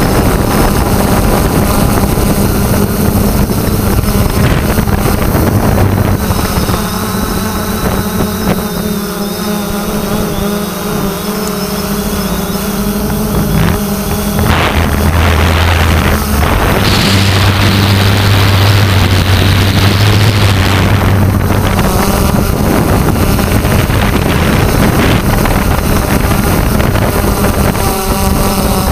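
3DR Solo quadcopter's electric motors and propellers buzzing steadily in flight, heard from the drone's own camera. The sound drops for a few seconds about a quarter of the way in, then grows louder and rougher for about six seconds around the middle.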